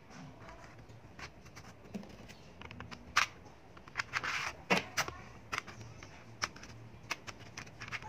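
Small magnetic balls clicking sharply and irregularly as rows of them are snapped together and pulled apart, with a white card scraping and rustling against them, in a longer stretch about four seconds in.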